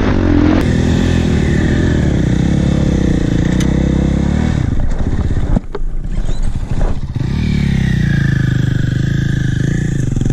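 Dirt bike engine running under throttle, its note rising and then holding. About halfway through the throttle comes off and the engine falls to a low, uneven note for a second or two, then picks up again with a rising note.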